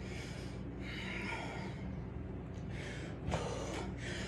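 A man breathing hard and loud, heavy breaths in and out about once a second, winded from burpees, over a steady low hum, with one short click about three seconds in.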